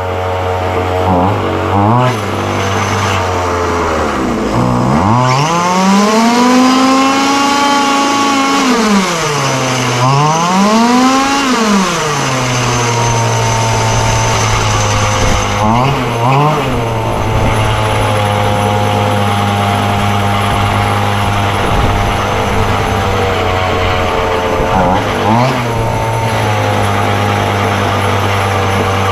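Chung Yang 26cc two-stroke gas engine of a large-scale RC car idling steadily, blipped briefly a few times and revved hard twice for several seconds, each rise and fall in pitch smooth before it drops back to idle.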